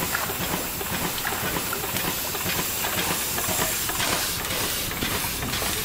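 1899 American Fire Engine Company steam pumper running, its vertical-boiler steam engine and pump working with a steady hiss of steam.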